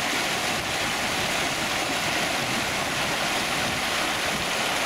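Fast, shallow mountain stream rushing over rocks, a steady, close rushing noise.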